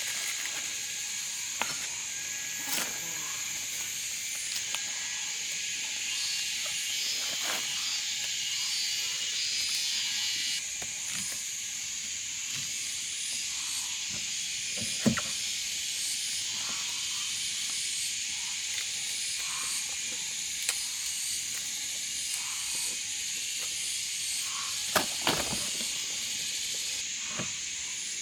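Steady high-pitched insect chorus, with a few short knocks scattered through it, the loudest about halfway through and near the end.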